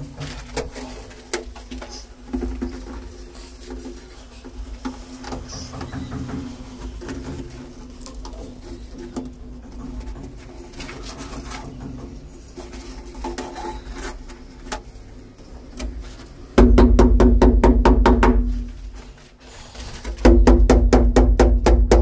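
Heavy iron binding wire being handled and twisted around a concealed cistern frame against a block wall, giving small clicks and scrapes. Near the end come two loud bursts of rapid strokes, about eight a second and each about two seconds long, as a brush is scrubbed against the wall.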